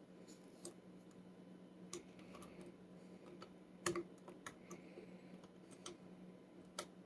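Faint, irregular metallic clicks and ticks of a lock pick and tension wrench working the pins of a five-pin Schlage pin tumbler lock, with one louder click about four seconds in.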